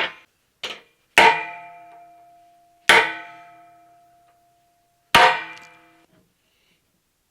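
Hammer striking a transfer punch to mark a vise mounting hole on a 3/8-inch steel table top. Two light taps come first, then three hard blows spaced about two seconds apart, each leaving the steel ringing for a second or more.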